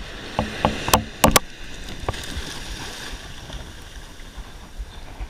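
Surf washing up the beach: a steady hiss of foaming water. A few sharp clicks and knocks come first, in about the first second and a half.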